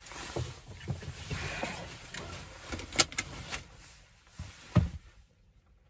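Handling noises inside a car: rustling with a few soft thumps, two sharp clicks about three seconds in, and a heavier thump shortly before the end.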